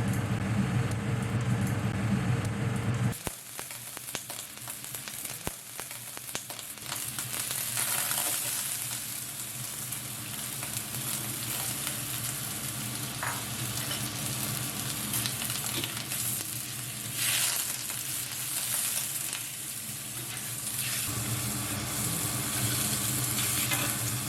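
Food sizzling as it is stir-fried in a wok, with the clicks and scrapes of a utensil stirring. A low hum during the first three seconds stops suddenly.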